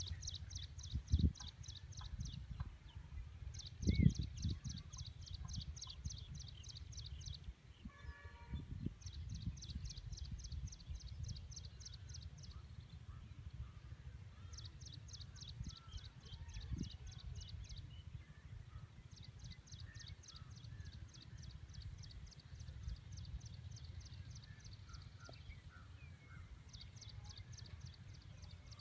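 Steady low rumble of wind on the microphone, with louder gusts about one and four seconds in. Over it, a small animal calls in high-pitched runs of rapid chirps, about five or six a second for two to three seconds, repeating every few seconds.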